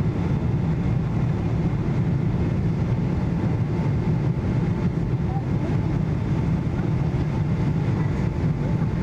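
Steady low rumble of engine and airflow noise inside the cabin of a Boeing 777-200 on final approach, with flaps extended.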